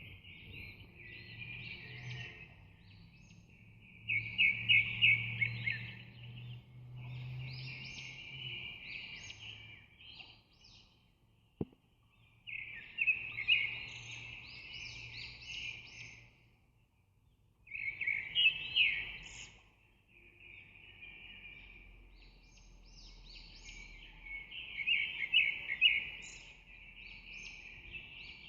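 Birds chirping in repeated bursts of rapid song, each a few seconds long with short pauses between, and a single sharp click about twelve seconds in.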